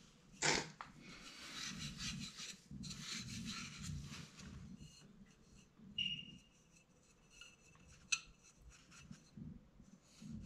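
Scraping and rubbing on copper pipe and fittings, with a sharp metallic clink about half a second in and a short ringing metal tap about six seconds in.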